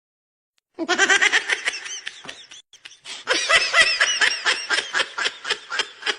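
Laughter sound effect: a person laughing in fast, rhythmic pulses, in two bouts, the second longer than the first.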